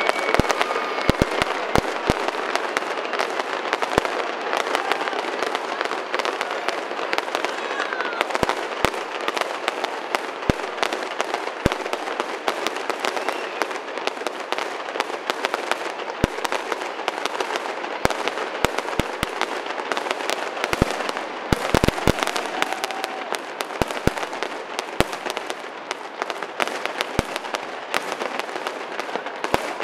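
Fireworks display: a dense, continuous crackle of many small reports, broken by frequent sharp bangs, with a few short whistling glides.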